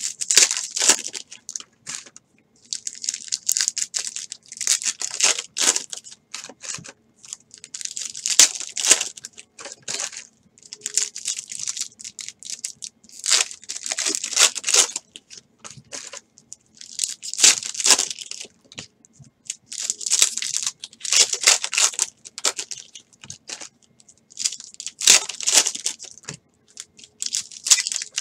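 Foil trading-card packs being torn open and crinkled by hand, one after another, in repeated bursts of crinkling every couple of seconds.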